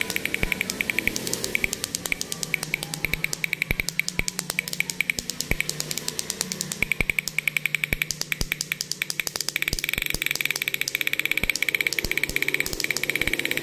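Petrol car engine running with a rapid, even ticking over a low steady hum.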